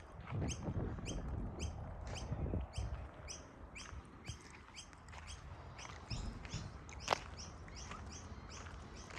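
A small bird chirping over and over in an even rhythm, about two to three short high calls a second. A low rumble is under the first few seconds, and there is a single sharp click about seven seconds in.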